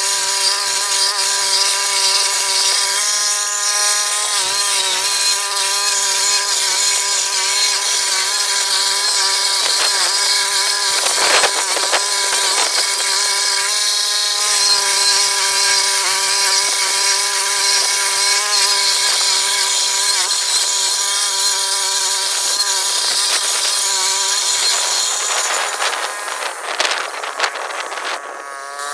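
Gas-powered walk-behind stump grinder running at full speed, its cutter wheel chewing into a tree stump with a steady high whine. The pitch sags briefly now and then as the cutter bites. The sound drops in level and turns rougher near the end.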